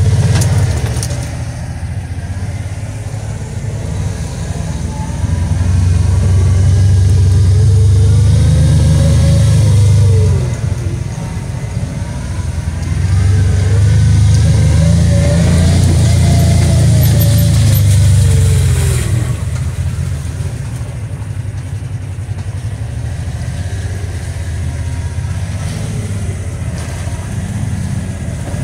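Side-by-side UTV engine running under the rider, revving up twice for several seconds each. During each rev a whine rises and then falls in pitch, and between the revs the engine drops back to a lower steady run.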